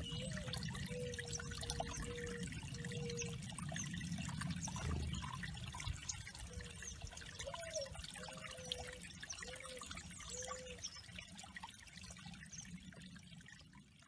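Small garden waterfall trickling and splashing steadily over stacked stone slabs into a shallow pebble-lined pond, fading out near the end.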